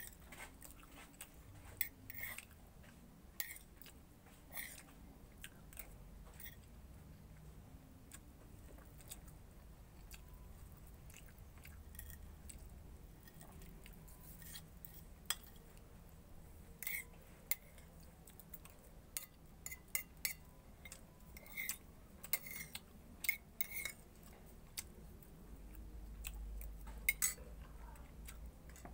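Metal spoon clinking and scraping against a plate while someone eats, in irregular light taps that come thicker in the second half, with some chewing between.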